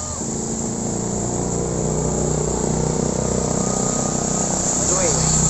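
Steady high chirring of insects over a low, steady mechanical hum that grows slightly louder.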